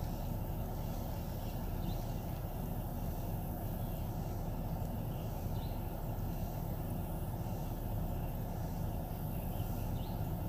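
Steady low outdoor background noise with no distinct events, and a few faint high chirps about two, six and ten seconds in.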